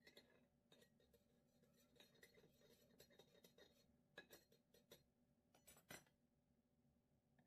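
Faint clinks and scrapes of a metal table knife against a container as pâté wet cat food is scraped out, with a few sharper taps about four and six seconds in.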